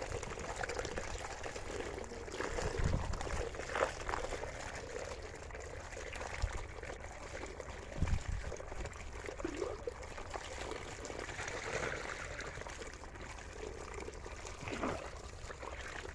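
Water trickling and pouring in a steady stream into a cane basket of small puti fish, with a couple of dull knocks.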